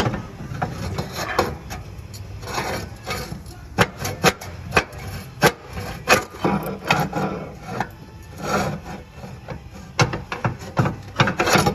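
A rusty, stuck starter motor being wiggled and worked loose in its mounting: irregular sharp metal knocks and scraping as it binds and shifts.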